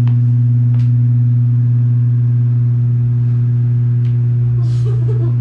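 Steady, loud low hum: one unchanging pitch with a couple of fainter overtones. A few faint clicks sound over it, and there is a brief rustle near the end.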